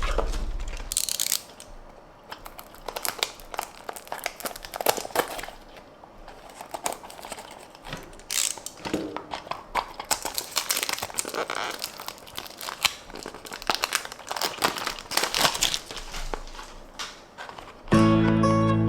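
Toy-car packaging being handled and opened by hand: irregular crinkling, rustling and tearing with small clicks. Music comes in near the end.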